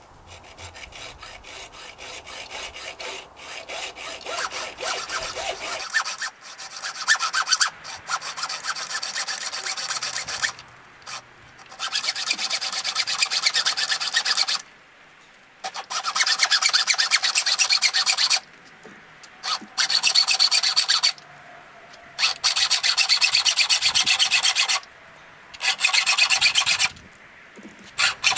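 A saw cutting through a bicycle fork's steerer tube with quick back-and-forth strokes. The strokes come in bouts of a few seconds, with short pauses between them.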